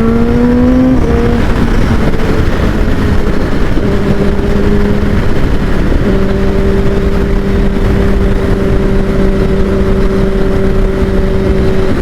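Kawasaki Ninja ZX-10R inline-four with an Akrapovic full exhaust system, heard while riding. Its note rises under acceleration for about a second and breaks at a gear change. It drops away briefly around five seconds in, then holds a steady pitch at cruise, over a constant rush of wind noise.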